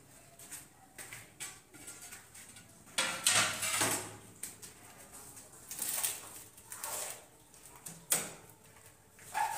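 Scraping and light knocks as a ceramic tile is handled and set on a concrete kitchen counter. There is a longer scrape about three seconds in and a sharp knock a little after eight seconds.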